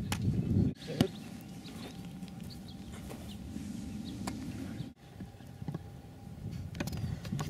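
Outdoor ambience: faint, short bird chirps over a low background rumble, with one sharp knock about a second in. The sound drops out briefly twice.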